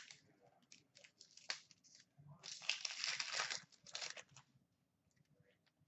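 Hockey card pack wrapper being torn open and crinkled by hand: a few short crackles, then a couple of seconds of dense crinkling starting about two seconds in.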